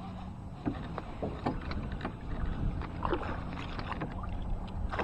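Water splashing and sharp knocks beside a kayak as a small freshwater drum, hooked on a crankbait at the boat, thrashes at the surface. The splashes begin about a second in and come thicker toward the end.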